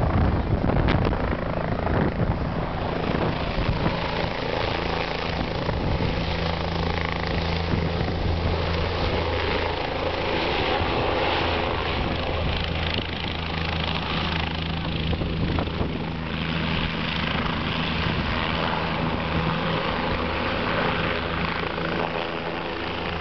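Helicopter flying low overhead, its rotor and engine giving a steady low drone.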